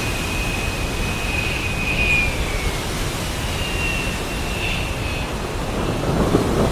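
Thunderstorm ambience: steady rain and wind with a low continuous rumble of thunder, and a faint thin whistle wavering in pitch for the first few seconds. A fresh crackling roll of thunder builds near the end.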